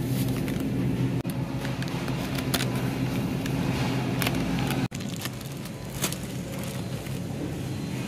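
Plastic produce bags crinkling and groceries being handled and shifted in a metal shopping cart, in scattered short clicks and rustles over a steady low hum.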